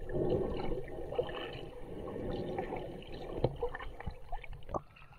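Water gurgling and sloshing around a camera held at the surface, with bubbles, as a snorkeler swims. A few sharp clicks come in the second half.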